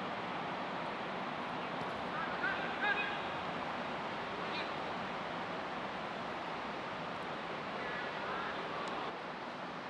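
Steady outdoor background noise of a soccer pitch, with two short shouted calls from players, one about two and a half seconds in and one near the end.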